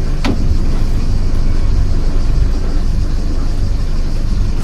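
Najad 380 sailboat's inboard engine running steadily as the boat motors off its mooring, a low rumble. One sharp click about a quarter of a second in.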